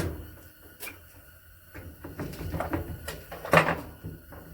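Handling noise: a few sharp knocks, the loudest about three and a half seconds in, with scraping and shuffling in between.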